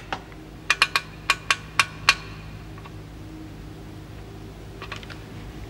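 Control-panel switches clicked in quick succession, about seven sharp clicks in under two seconds, then a couple of fainter clicks near the end, over a steady low hum.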